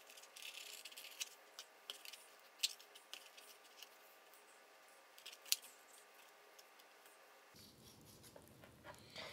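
Fillet knife cutting a trout fillet away from the backbone: faint scraping and slicing, with two sharp clicks about two and a half and five and a half seconds in.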